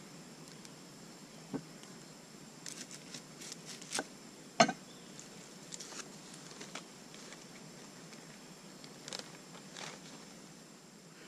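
Knife cutting an onion on a wooden cutting board: scattered knocks and clicks, the sharpest about four and a half seconds in, over a faint steady high hum.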